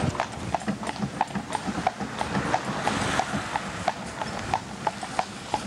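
Horse's hooves clip-clopping on a paved road at a steady walk, about three hoofbeats a second.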